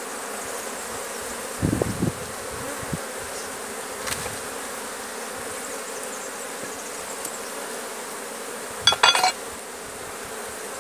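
Honeybees humming steadily over an open hive. A low bump comes about two seconds in, and a louder, brief clatter of wooden hive frames being pried and shifted comes near the end.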